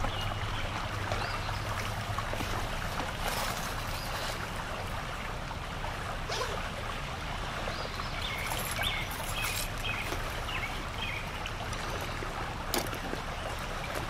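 Creek water running in a steady trickle, with a single sharp click near the end.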